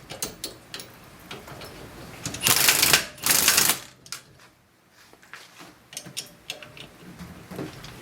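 Impact wrench hammering in two short bursts about two and a half seconds in, driving bolts through from the back to press a stuck rear wheel-hub assembly out of its knuckle, with lighter metal clicks between.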